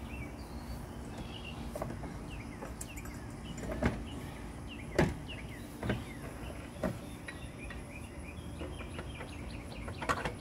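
A handful of sharp metal knocks and clanks, about five, as a new CV axle is worked into the front steering knuckle and hub by hand. The loudest comes about five seconds in, over a steady low background hum.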